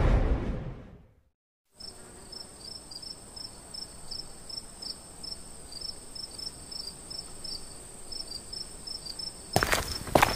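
Crickets chirping at night: a steady high trill with quick repeated chirps, starting about two seconds in after a music sting fades out. A few sharp clicks come near the end.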